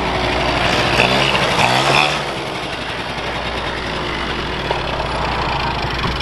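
Suzuki ATV engine revving hard about a second in as the quad is lifted onto its rear wheels, then settling into a steadier run.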